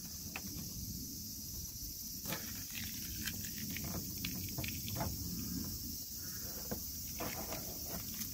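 Masking tape being peeled off a car's painted body panel and crumpled in the hands, giving irregular crackles and rips from about two seconds in. A steady high-pitched insect drone runs under it.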